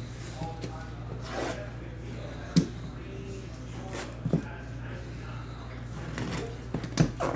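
A shrink-wrapped cardboard box being handled: a few sharp knocks as it is picked up and turned over on the table, the loudest about two and a half seconds in, and fingers rubbing over the plastic wrap and seal sticker. A steady low electrical hum runs underneath.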